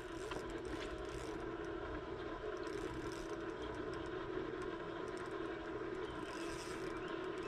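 A boat motor running with a steady hum, with a few light clicks and scrapes over it.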